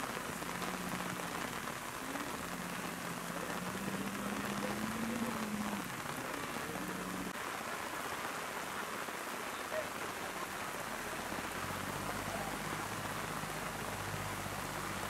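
Steady rain falling on grass and foliage, an even hiss throughout.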